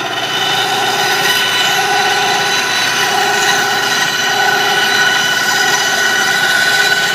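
Ryobi 9-inch bandsaw cutting through a wooden board: a steady motor whine with the blade rasping through the wood, the cut going through cleanly.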